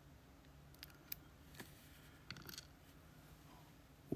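Near silence broken by a few faint, light clicks: tweezers handling the small springs and pins of a lock cylinder being taken apart.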